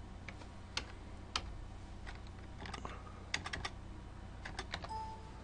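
Computer keyboard typing: faint, irregular single key clicks as a number is entered into a cell.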